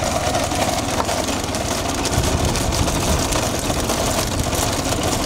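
Steady vehicle engine and road noise at a constant level, from a motor vehicle travelling at speed alongside a bullock-cart race.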